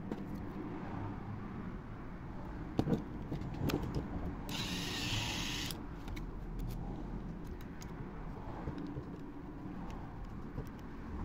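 Handling noise from a plastic toy snake head being put back together: a few sharp plastic clicks and knocks about three seconds in, then a brief burst of hiss, over a steady low background hum.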